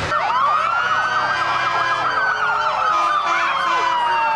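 Several fire truck sirens sounding together. One siren climbs quickly in pitch and then slides slowly downward, while other sirens waver rapidly up and down over it.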